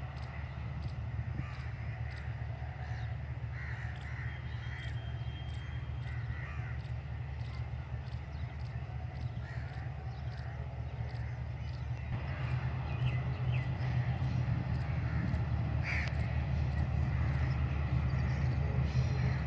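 Crows cawing again and again over a steady low rumble, which grows louder about twelve seconds in.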